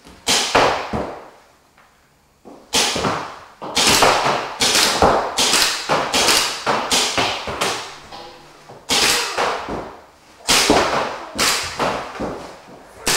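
Paintball markers firing reballs, sharp pops in rapid strings with a short ringing tail after each. One shot comes just after the start, then after about two seconds of quiet the shots come several a second, with a brief lull about eight seconds in.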